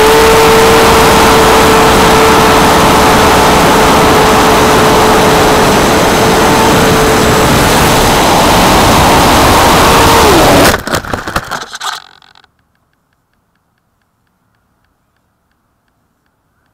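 Onboard the RC B-25 Mitchell model: loud wind rush over the airframe and the steady whine of its motors. About ten seconds in, the whine drops in pitch and the sound breaks up into a second and a half of choppy impacts as the plane crashes, then near silence.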